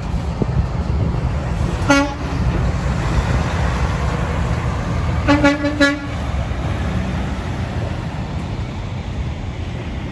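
A truck's horn gives one short toot, then a few seconds later three quick toots of the same single pitch, over a steady low rumble of truck engines and traffic.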